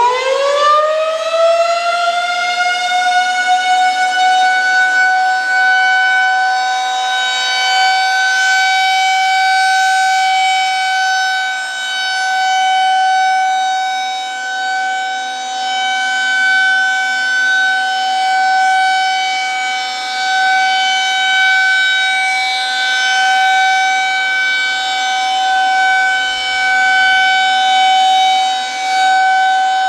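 Federal Signal 2001-SRNB outdoor warning siren sounding a monthly test. It finishes winding up in the first few seconds, then holds one steady tone. Its loudness swells and fades every few seconds as the rotating head turns.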